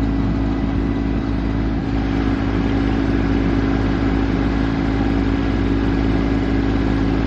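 Tractor diesel engine running steadily at constant speed, a strong hum with no change in pitch.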